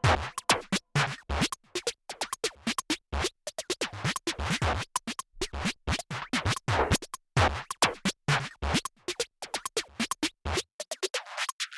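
Electronic music made of fast, choppy stuttering hits with a scratch-like quality. Near the end the bass cuts out and the sound thins to the highs for about a second.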